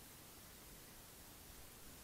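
Near silence: a faint, steady hiss of background noise.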